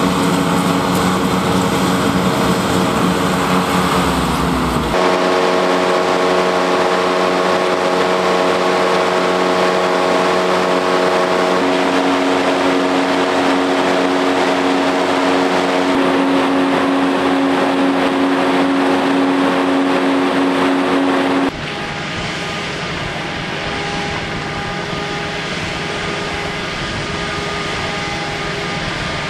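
Amphibious craft engine running at a steady pitch. The drone changes abruptly twice, about 5 and about 21 seconds in, each time to a different steady engine note.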